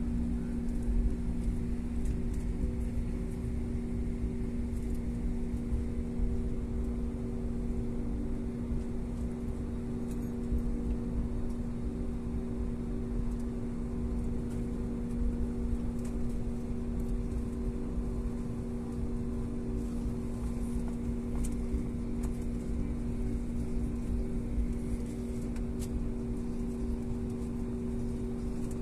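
Airliner cabin noise during taxi: a steady hum of the engines with a few constant tones over a low rumble, heard from inside the cabin.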